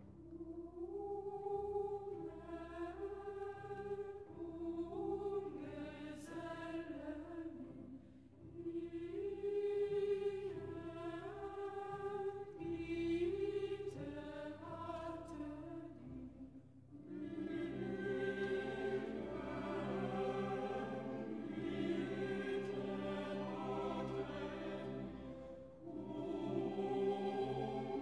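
Background music: a choir singing slow, held chords over a steady low drone, growing fuller and louder about two-thirds of the way through.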